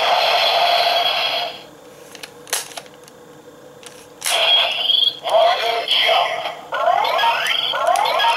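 Kamen Rider Hopper Zecter transformation belt toy playing electronic sound effects from its small speaker: a steady charging tone that cuts off about a second and a half in, a click about a second later, then from about four seconds in a run of rising electronic sweeps as its lever is worked.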